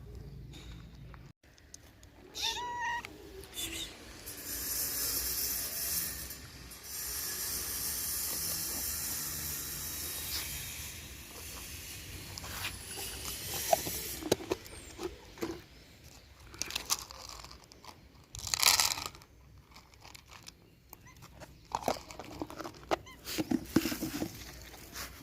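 Cats meowing, with a short meow about two to three seconds in, among scattered clicks and taps and a stretch of steady noise.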